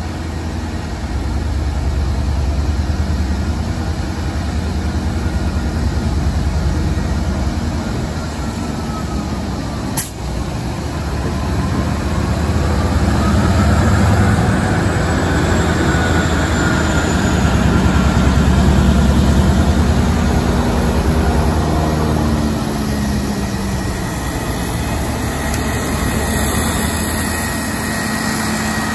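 Diesel locomotive passing close by, its engine rumbling and swelling as it goes past, then the train's cars rolling by with a diesel generator running on the spray flatcar. A single sharp click about a third of the way in.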